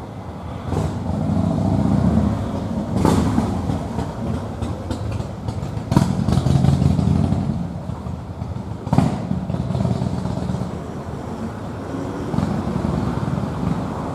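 Low rumbling outdoor background noise that swells and fades, with a few brief clicks about every three seconds.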